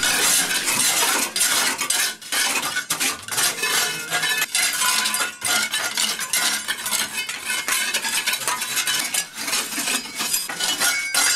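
Hand tools scraping and brushing an old stone-and-mortar wall, several at once, a dense continuous rasping full of small scratches and knocks. The wall is being scarified, its loose mortar and dust stripped off, to prepare it for lime plaster.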